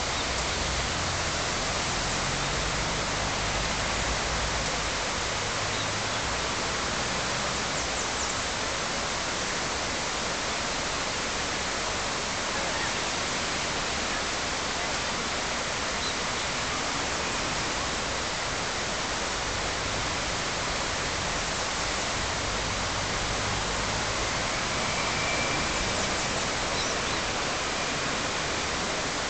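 Steady, even outdoor hiss with no clear source in it, and a couple of faint, brief high sounds about a third of the way in and again near the end.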